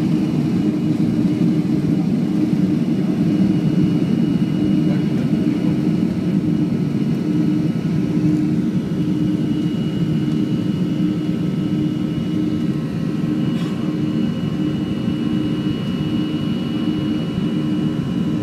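Boeing 737-500's CFM56-3 turbofan engines at takeoff thrust, heard from inside the cabin over the wing through lift-off and the initial climb. It is a loud, steady rumble with a thin, high whine.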